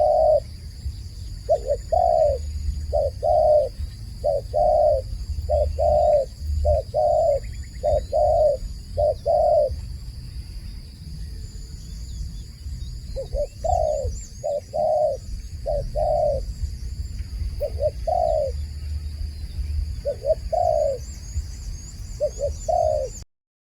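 Dove cooing: short repeated coos in runs, with a pause of a few seconds midway before the calling resumes. It stops abruptly near the end. Faint chirps from small birds and a steady high-pitched whine sit in the background.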